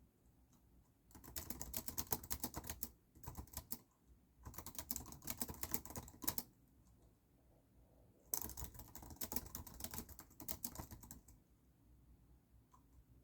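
Typing on a computer keyboard in quick runs of keystrokes. There are several bursts, from about one to three seconds each, starting about a second in and again around four and eight seconds, with short pauses between them.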